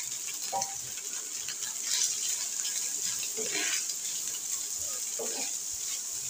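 Shredded chicken frying in a little oil in a pan, a steady sizzling hiss while it is stirred.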